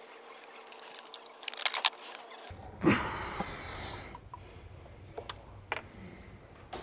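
Light metallic clicks and scraping of a small hand pick being worked inside the engine bay to hook out an old O-ring, with a louder scuff about three seconds in and a few faint ticks after.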